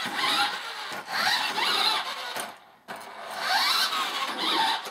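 Electric motor and gears of a four-wheel-drive remote-control monster truck whining, the pitch rising and falling as it speeds up and slows down, with a short stop about two and a half seconds in before it starts again.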